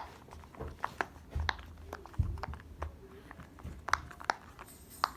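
Scattered small clicks and taps of fidget toys being handled, with a couple of dull low thumps about a second and a half and two seconds in.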